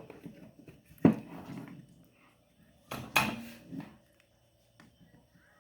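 A small metal tool knocking and scraping against a microwave's electronic control board, twice with a sharp clink followed by a short scrape, as leftover glue is cleared from where the buzzer sat.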